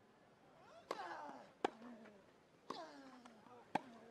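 Tennis rally on a grass court: four racket strikes on the ball, about a second apart, two of them followed by a player's short grunt.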